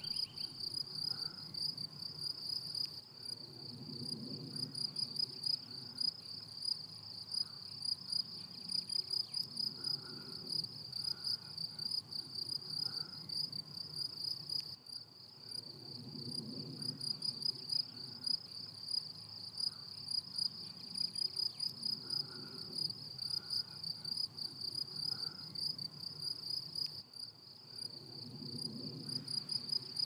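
Crickets chirping steadily in a meadow, a high-pitched, rapidly pulsing trill that never stops.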